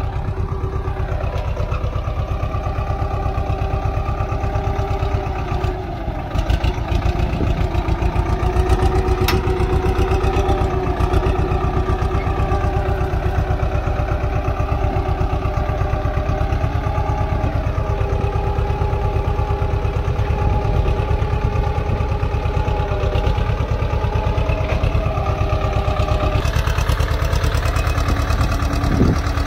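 Swaraj 724 XM Orchard tractor's two-cylinder diesel engine running steadily under load while pulling a single-bottom plough through soil, its pitch wavering slightly as the load changes.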